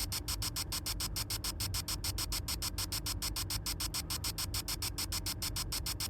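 Spirit box sweeping through radio stations: choppy static pulsing about ten times a second, with a steady low rumble underneath.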